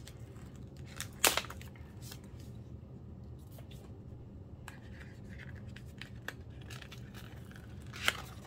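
Album packaging and photocards being handled: light rustling and scraping, with a sharp click about a second in and another near the end.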